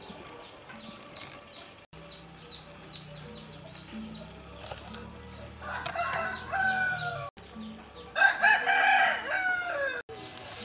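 A rooster crowing twice, once near the middle and again near the end, each crow a second or two long. Under it runs a faint, steady series of short high chirps, about four a second.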